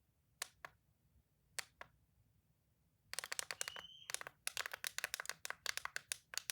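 Toy clicking: two double clicks, then from about three seconds in a fast run of clicks, many to the second.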